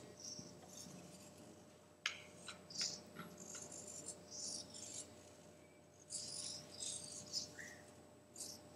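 Hobby servo motors of a small desktop robotic arm buzzing in short bursts as its joints move, with a few light clicks.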